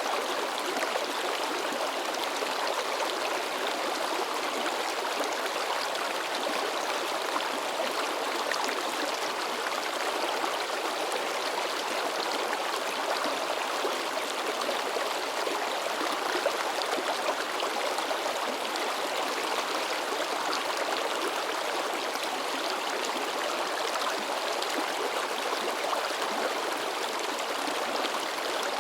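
River babbling over rocks: a steady splashing rush of flowing water, even throughout.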